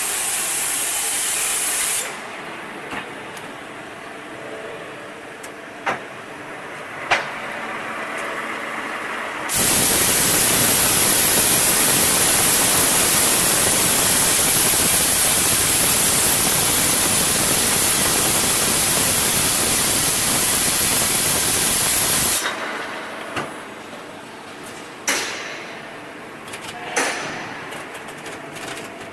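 Nine-spindle CNC H-beam drilling machine at work: a loud, steady hiss for about thirteen seconds in the middle, with quieter machine running and a few sharp clicks and knocks before and after it.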